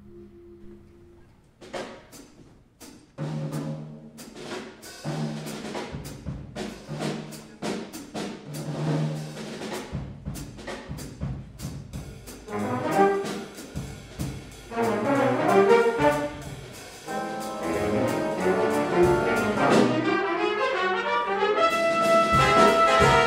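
A choir's held chord fades out at the very start. Then a jazz big band plays, opening with sharp drum hits over low bass notes, with trumpets, trombones and saxophones filling in fully after about ten seconds.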